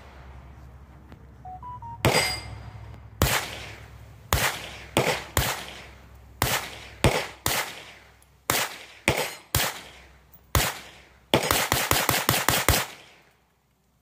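Spikes Tactical AR9 9mm pistol firing through a 15-round Glock magazine. Single shots come about a second apart, then a fast string of about seven shots near the end. It cycles every round with no jam, a clean function test of the new gun.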